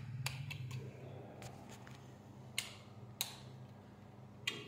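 A handful of sharp clicks and taps spaced irregularly over a few seconds, the loudest two about half a second apart midway through. Under them a low steady hum fades away in the first half.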